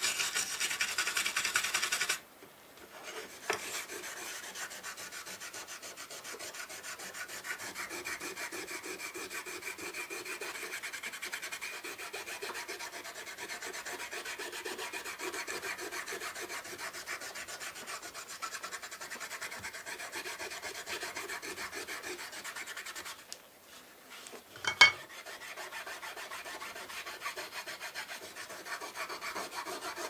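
Quick back-and-forth rubbing of a hand-held stick over a small embossed metal plate from an old sewing machine, as the plate is cleaned and polished. The rubbing is loudest in the first two seconds and breaks off briefly after that and again near the 23-second mark. A single sharp knock comes about 25 seconds in.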